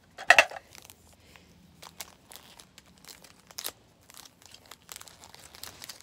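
A sharp knock just after the start, then scattered plastic crinkling and light clicks as a new speed cube and its clear plastic packaging are handled.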